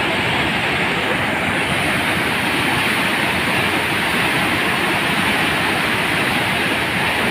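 River in spate, swollen with muddy floodwater, rushing past the piers of a railway bridge. It makes a steady, loud rush of water.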